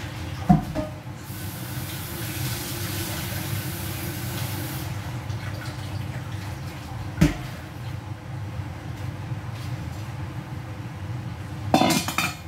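Water pouring from a steel bowl into a stainless-steel kitchen sink for a few seconds, after a ringing metal clank about half a second in. Another knock follows partway through and a short clatter of kitchenware near the end, over a steady low hum.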